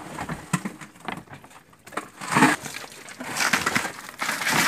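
Crushed ice crunching and rattling as it is packed around hilsa fish in a plastic tub, in irregular bursts, the loudest about two and a half seconds in.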